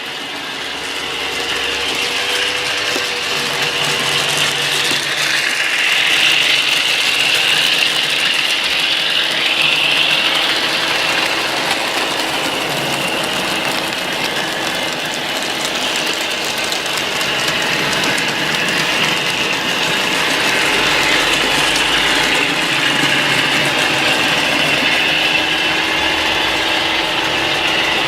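Model railway train running on the layout's track: a steady mechanical whirring of the locomotive's motor and wheels on the rails, building up over the first couple of seconds.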